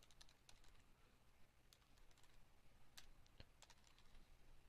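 Faint keystrokes on a computer keyboard, typing in short irregular runs.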